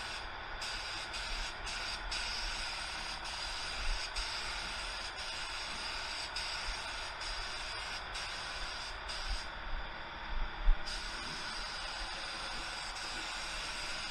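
Compressed-air gravity-feed spray gun hissing steadily as it sprays base coat onto a car door. The hiss thins briefly near the start and again for about a second around ten seconds in, and a dull knock comes near the end of that second break.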